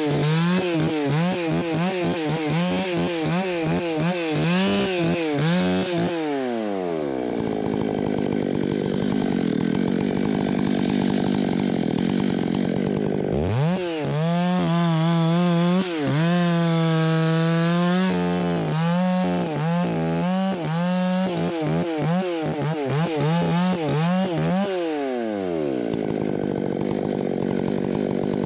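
Stihl MS661 two-stroke chainsaw cutting a white fir log: the engine revs up and down, climbs to full speed about six seconds in, drops and holds a lower steady pitch under load as the bar bites into the log about halfway through, then revs up again near the end.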